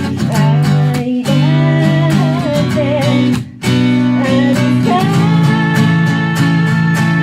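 Music: an acoustic-guitar instrumental passage, a wavering melody line over guitar chords, settling onto a held chord near the end.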